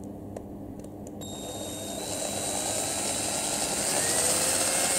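Small electric drill starting up about a second in and running steadily, growing louder as it bores a ventilation hole through the plastic housing of an EKEN action camera; its pitch rises slightly near four seconds in.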